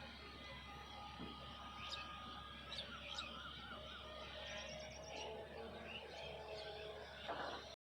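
Faint outdoor ambience: a few short bird chirps over a steady low hum.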